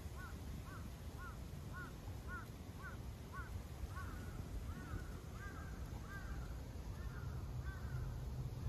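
A bird calling in a rapid series of about fifteen short, arched, caw-like notes, roughly two a second, going on for about eight seconds, with the notes growing longer and fainter toward the end.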